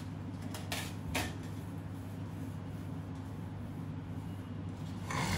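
A handheld eraser wiping marker off a whiteboard, a soft rubbing with a couple of light knocks about a second in, over a steady low hum.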